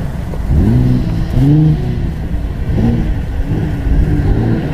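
Off-road race vehicle's engine revving in repeated bursts, its pitch rising and falling several times.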